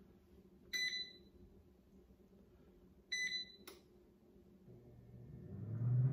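Power Air Fryer Pro touch panel beeping twice as its buttons are pressed, with a click after the second beep. Then the air fryer starts up for its rotisserie cook, a low hum rising in level over the last second or so.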